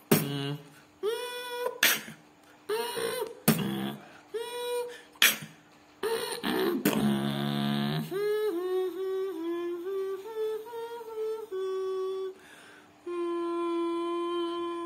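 Beatboxing: vocal snare and bass strokes alternating with short hums for the first several seconds. Then comes a rough, low deep-throat sound, followed by a closed-mouth hummed melody that steps up and down in pitch and ends on a long held hum.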